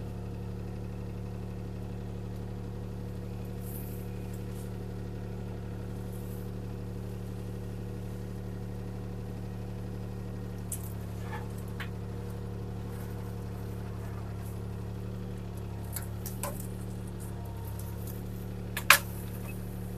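CAT 303C CR mini excavator's diesel engine running steadily under hydraulic work as the arm swings and handles a felled tree. A few sharp knocks come from about halfway on, with one loud one near the end.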